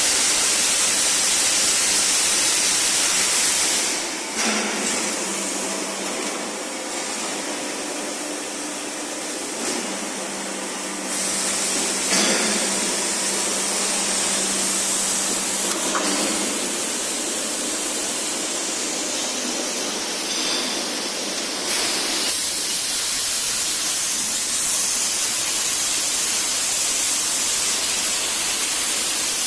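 Steady loud hiss of release agent being sprayed and blown onto the die of a 1250-ton cold chamber die casting machine, misting the air. For a stretch in the middle the hiss eases and a steady machine hum with a couple of knocks comes through.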